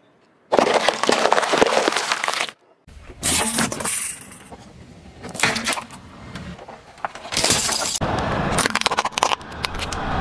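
A car tyre rolling over and crushing objects on asphalt, heard in several separate clips that start and stop abruptly: loud crunching, splitting and cracking as bell peppers, a jelly-filled plastic bottle and hard plastic give way under the wheel.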